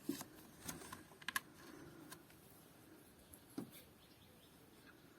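A few light, scattered clicks and taps of small steel parts being handled, with the loudest near the start and a pair about a second and a half in.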